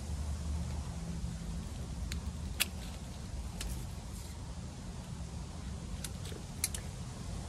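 Hand pruning shears snipping rose stems, a handful of sharp clicks scattered through, over a steady low rumble.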